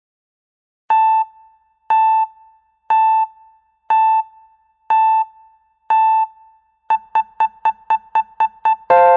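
Countdown timer's electronic end-of-time alert: six single beeps a second apart, then eight quicker beeps at about four a second, then near the end a louder ringing chord of several notes that slowly fades, signalling that time is up.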